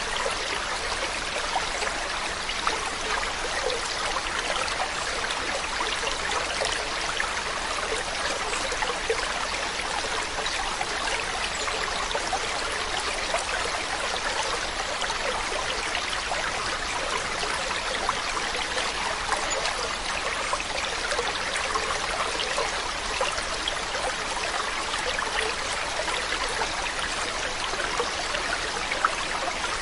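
Mountain stream running steadily over rocks, a continuous rushing and trickling of water with small splashes.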